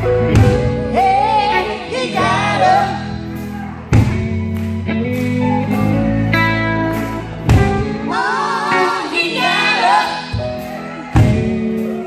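Live gospel music: singers holding wavering, sustained notes over a band of guitar and drum kit.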